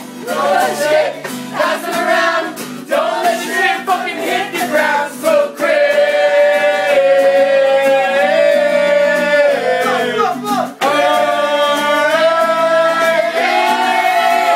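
Several people's voices howling together. Short, choppy calls come first, then from about six seconds in they hold long notes that waver slightly.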